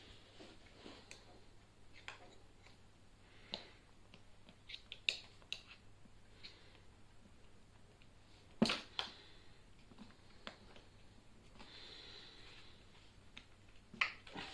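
Tyre levers clicking and knocking against the wheel rim and scooter frame as the tight bead of a Pure Air e-scooter's rear tyre is prised off. Scattered clicks, with one sharp knock a little past halfway.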